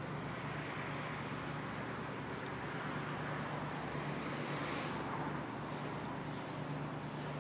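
Wind on the microphone over the steady low hum of a small motorboat's outboard motor, the wind swelling a little about halfway through.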